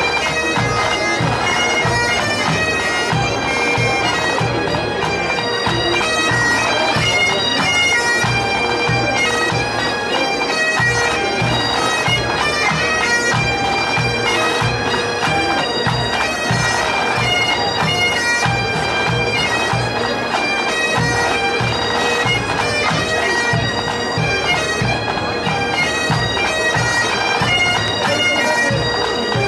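Pipe band playing a tune: Highland bagpipes sounding a melody over their constant drone, with drums beating time underneath.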